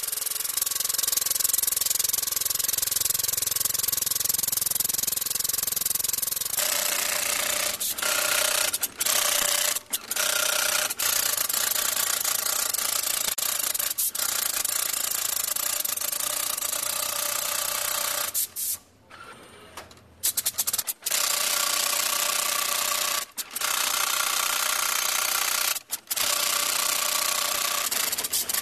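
Tufting gun on a Hitex robotic hand-tufting machine running, shooting yarn into backing cloth: a steady rasping buzz that turns brighter about six seconds in and stops briefly several times, once for about two seconds about two-thirds of the way through.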